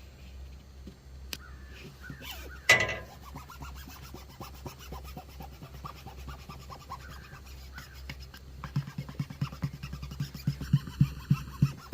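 Vinyl decal being rubbed down through transfer paper onto a boat hull: rhythmic rubbing strokes, about three a second, starting past the middle. A single brief loud sound stands out near the three-second mark.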